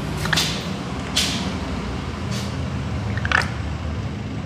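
Plastic tube of face wash being squeezed into an engine's oil filler, making four short squishing, squirting sounds about a second apart, over a steady low background hum.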